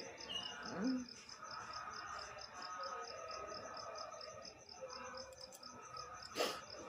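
Cricket chirping steadily in a high, even pulse. A short voice-like sound comes about a second in, and a sharp burst of noise comes shortly before the end.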